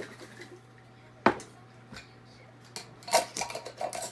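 Filled food containers being handled on a kitchen counter: one sharp knock about a second in, then a run of quick clicks and clatter near the end.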